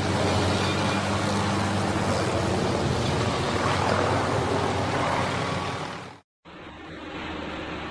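Helicopter flying overhead: steady rotor and engine noise with a low hum. It cuts off about six seconds in and gives way to a quieter, steady driving noise heard from inside a car.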